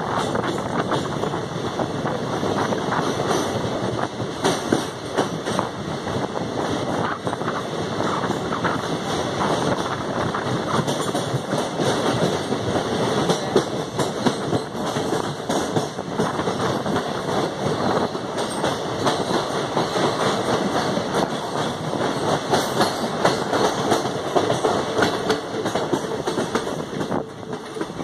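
Passenger train running at speed, its wheels clattering over the rail joints with the rumble of the coaches, heard from an open coach door while the train passes through a rock tunnel. It gets a little quieter near the end as the train comes out into the open.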